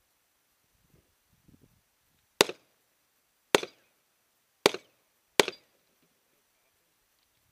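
Four gunshots, sharp cracks each with a short echoing tail, about a second apart, the last two closer together.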